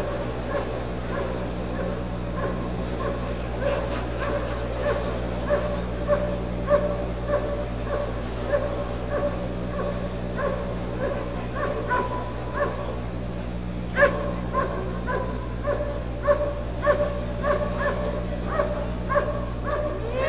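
German shepherd barking steadily at a helper hidden in a blind, about two barks a second with one louder bark partway through: the hold-and-bark (Stellen und Verbellen) of a Schutzhund protection routine.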